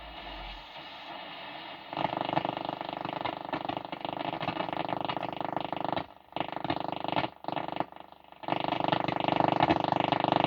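Cossor CR4212A valve radio's loudspeaker hissing with static between stations; about two seconds in a loud, harsh buzzing signal comes in, dropping out briefly a few times before returning.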